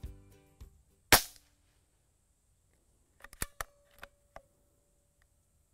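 A Benjamin Marauder .22 PCP air pistol fires once about a second in, a single short, quiet crack. A couple of seconds later comes a quick run of small metallic clicks as the bolt is worked to load the next pellet.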